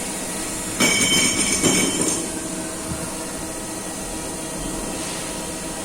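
Factory CNC machinery running with a steady drone, and a louder, shrill, noisy burst about a second in that lasts just over a second.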